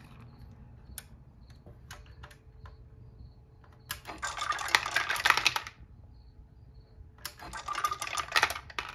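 Dry dog food kibble clattering down through the pegs of a homemade Plinko board into a food dish: a few scattered clicks, then two dense bursts of rattling, one around the middle and one near the end.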